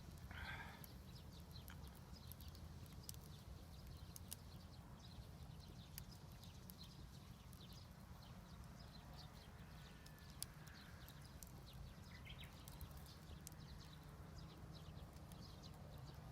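Faint crackling of a wood fire: scattered small pops and snaps over a low steady hum.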